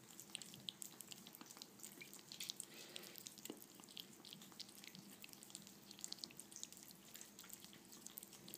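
Two ferrets lapping and chewing soft, mushy food from glass bowls: faint, irregular wet clicks and smacks.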